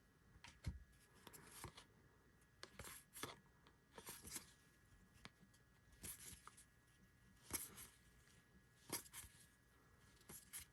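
Faint, brief swishes and flicks of baseball trading cards being slid off a stack one at a time, every second or two.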